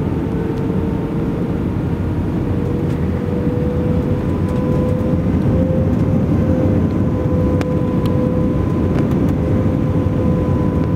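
Airliner cabin noise on the approach to landing: a steady rush of air and engine drone with a constant steady tone running through it.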